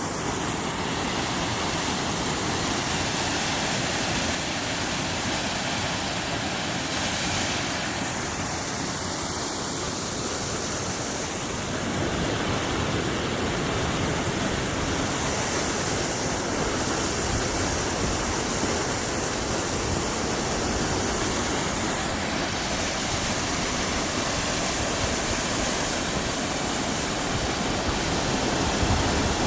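Water running down a mostly frozen waterfall, flowing through patches in the ice: a steady, even noise that gets slightly louder about twelve seconds in.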